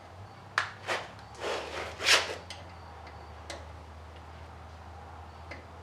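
Brass door-hinge bushings being pushed into a truck's hinge by hand: two sharp clicks, then a short scraping rustle about two seconds in, then a few light clicks of metal parts.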